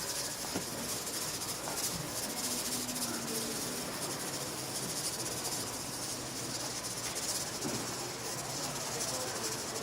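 Pork belly sizzling on a hot griddle: a steady, fine crackling hiss, with faint market chatter underneath.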